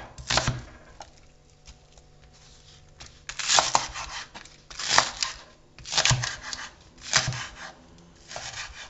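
Ceramic knife slicing through onion and green onion leaves onto a wooden cutting board: a few cuts just after the start, a pause, then short bursts of cutting about once a second from about three seconds in.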